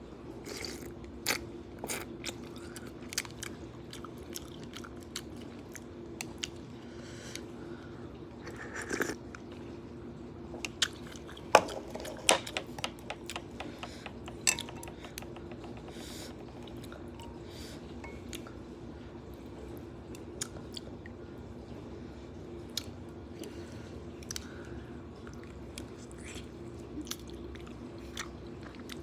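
A person chewing and biting noodles and fresh vegetables in soup, with irregular crunches and wet mouth clicks over a steady low hum.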